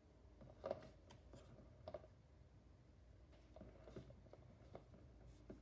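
Faint taps and scrapes of a stretched canvas being shifted and turned by gloved hands on a cake-decorating turntable. The strongest knock is a little under a second in, with softer ones after it.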